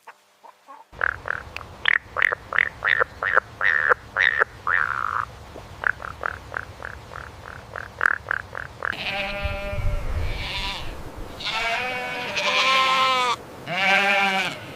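A chicken clucking in short, quick calls, two or three a second, for about eight seconds. Then a sheep bleats, giving about four long, wavering bleats.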